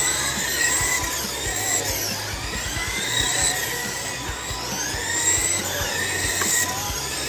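Several RC race cars lapping the track together, their motors whining. The whines overlap, each rising and then falling in pitch every second or two as the cars speed up and slow again.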